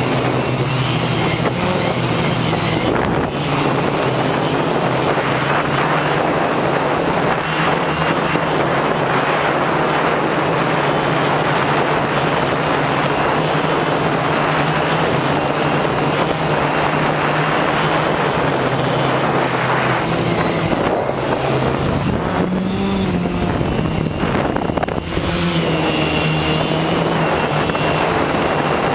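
FPV drone's electric motors and propellers whining steadily on the onboard camera, over a broad rush of wind and prop wash. The pitch rises briefly about three-quarters of the way through as the throttle changes.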